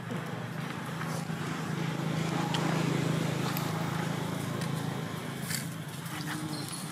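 A steady low motor hum that swells toward the middle and eases off again, like a vehicle passing, with scattered light clicks and rustles over it.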